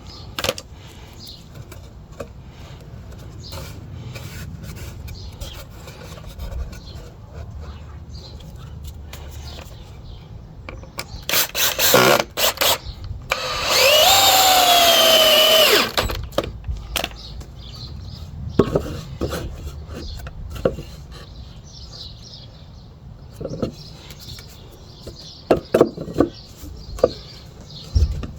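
Power drill driving screws into wood: a few short bursts about halfway through, then one loud run of about two seconds whose pitch rises and then sinks as the screw goes in. The rest is quiet knocking and clicking of boards and screws being handled.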